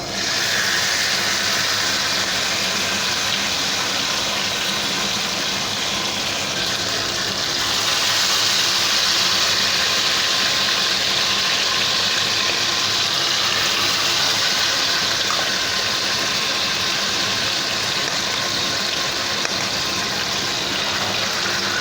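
Marinated chicken leg pieces frying in hot oil and ghee in a kadai on a high flame: loud, steady sizzling that grows a little louder about eight seconds in.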